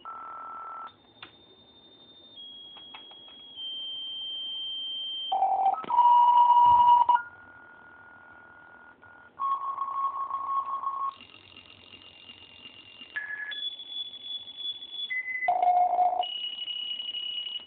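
Circuit-bent telephone answering machine sending out a string of steady electronic tones. Each is held for half a second to a couple of seconds, then jumps abruptly to a new pitch. The loudest stretch comes about six seconds in.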